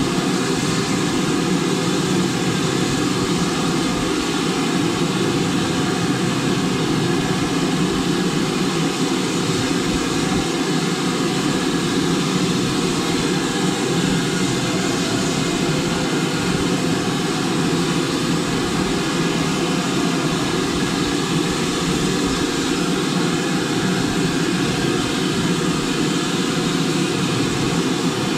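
BR Standard Class 5 4-6-0 steam locomotive 73156 running along the line, heard from the front of the engine: a loud, steady, even running noise with no distinct beats or changes.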